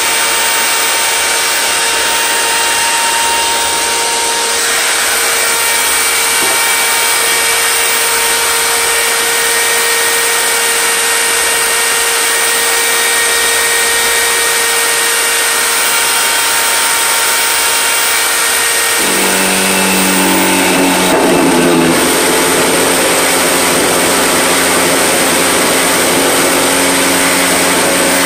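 Table-mounted router running at speed, a steady high whine, while a wooden board is fed along the fence. About two-thirds of the way through, the sound deepens and grows slightly louder as the board meets the bit.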